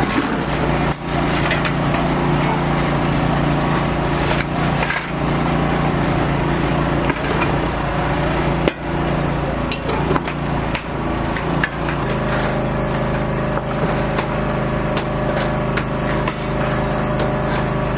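Building-site work: a machine runs with a steady hum that shifts slightly in pitch about two-thirds of the way through, under scattered sharp hammer knocks and clatter.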